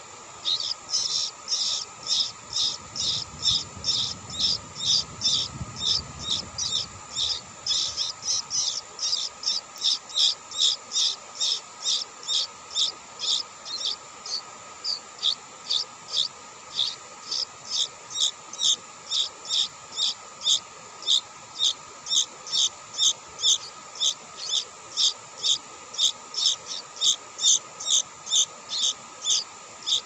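Bulbul nestlings begging: an unbroken run of short, high chirps, about two to three a second.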